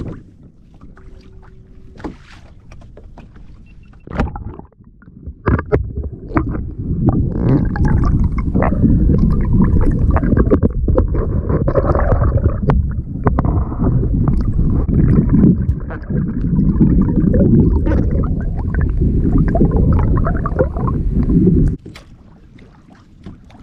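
Camera dipped into seawater: after a few knocks and a splash about five seconds in, a loud, muffled underwater rushing and gurgling that cuts off suddenly near the end as the camera comes out of the water.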